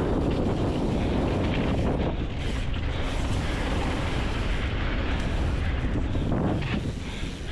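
Mountain bike riding fast down a dirt trail: continuous wind rumble on the camera microphone mixed with tyre noise and the bike rattling.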